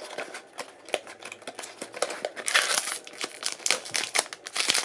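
A small cardboard blind box being handled and a foil blind bag pulled out of it: crinkling and rustling with many small clicks, and a denser burst of crinkling about two and a half seconds in.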